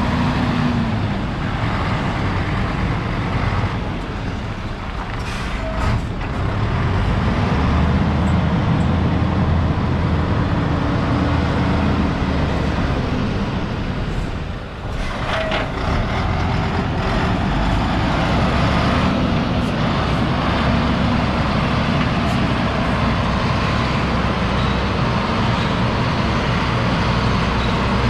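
MAN 19.343 tipper truck's six-cylinder diesel engine running as the truck drives slowly and turns, its revs rising and falling, easing off briefly about halfway through.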